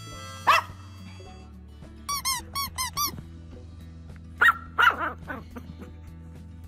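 Small dog yapping: one sharp yap, then a quick run of five high squeaks, then three or four more yaps, over steady background music.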